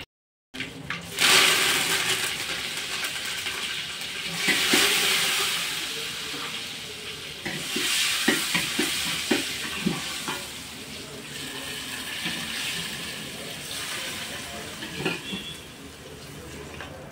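Water sizzling and hissing in a hot aluminium vessel on a wood-fired hearth as a hand works inside it. The hiss swells and fades in waves, with a few knocks against the metal.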